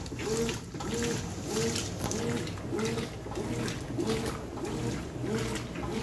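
Brastemp BWK14 14 kg top-load washing machine agitating a load at medium water level. Its drive whines up and down with each back-and-forth stroke, about two strokes a second, while the water sloshes and splashes.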